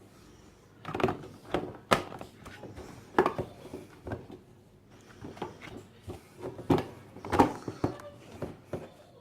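Hard plastic toy-car parts being handled and fitted together: a string of irregular knocks and clicks.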